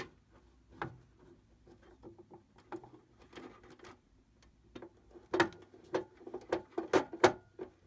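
Small clicks and light scratching of a wire being worked into a terminal on an irrigation controller's terminal strip. The clicks come thicker and louder in the second half.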